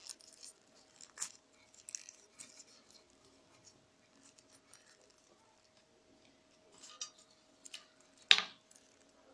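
Rolled newspaper tubes crackling and rustling in the hands as they are bent and woven, in scattered short clicks, with one sharp, louder crackle near the end.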